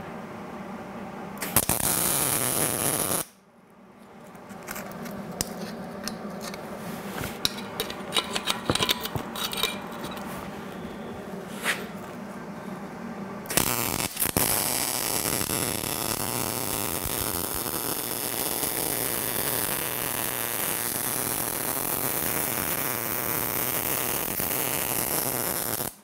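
Wire-feed welder arc: a short crackling tack weld of about two seconds, then scattered clicks, then a long steady weld run of about twelve seconds from about 13.5 s in that stops abruptly. The welder's heat is set a little high, and it burns a hole in the small steel bushing being welded.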